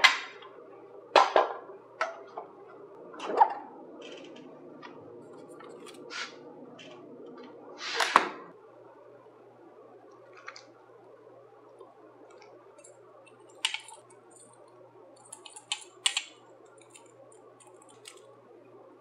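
Plastic clicks and clunks of an electric pressure cooker's lid being twisted open and lifted off, with a louder clatter about eight seconds in. After that come a few light taps as whole spices drop onto chicken in the stainless steel inner pot.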